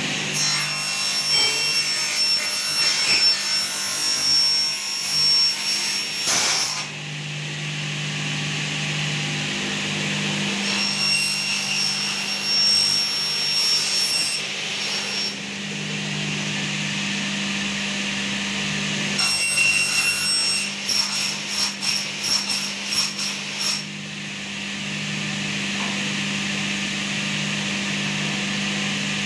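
Aluminium window profile being bent in a roller bending machine: metal scraping with a thin, high squeal in three spells of several seconds each, over a steady low hum.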